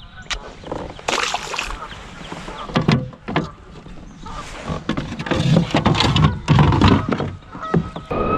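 A run of knocks, thunks and rustling aboard a fishing kayak as a just-measured bass and gear are handled, starting about a second in and busiest near the end.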